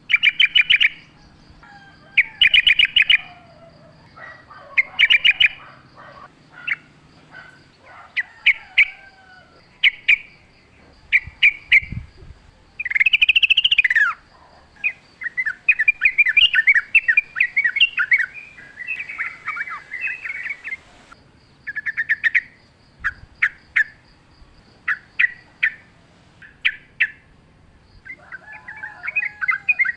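Yellow-vented bulbul (trucukan) singing: short bubbling, chattering phrases repeated every second or so. Near the middle comes one longer, louder phrase, followed by a few seconds of continuous chatter.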